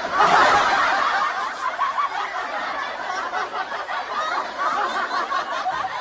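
Several people laughing together, loudest about half a second in, then a steady mix of laughter.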